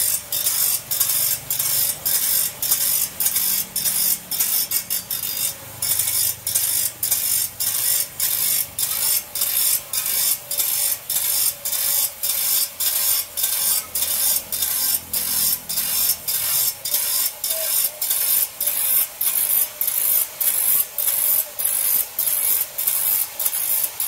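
A bench grinder's abrasive wheel grinds the steel teeth of a band saw blade, sharpening it, in a loud hissing scrape broken by brief gaps about twice a second as the blade is worked along.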